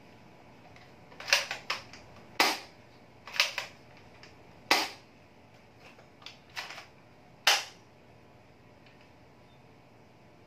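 Spring-type airsoft gun being cocked and fired, with about five sharp, ringing shots over some six seconds and lighter mechanical clicks between them.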